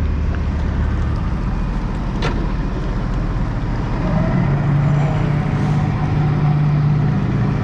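Heavy construction machinery engine running steadily, its note stepping up about four seconds in as it takes on more load or revs. A single sharp clank a little over two seconds in.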